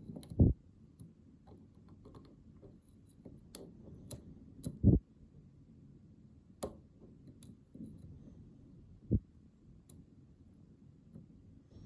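Small metal clicks and scrapes of a lock pick and tension tool working the pins of a BEST SFIC lock core, with three dull knocks from handling the lock.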